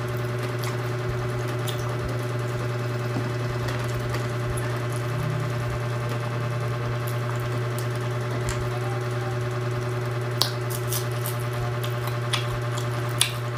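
A steady low electrical hum, such as an appliance or motor running, with a few short crisp clicks near the end from food being handled or chewed.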